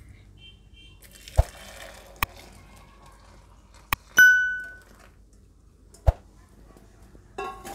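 A steel saucepan clinks and knocks against a steel tumbler as boiled milk is poured into it. About four seconds in, a click and then a bell-like ding from a subscribe-button animation sound effect ring out, louder than anything else.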